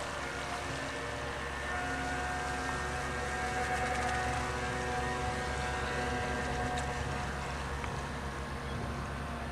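Nor-Star model motorboat's motor running at speed, a steady whine with several pitches over a low rumble, strongest in the middle as the boat runs past.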